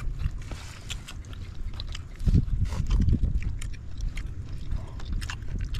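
People eating by hand: close chewing and mouth noises with scattered small clicks, and a few low thumps from about two seconds in.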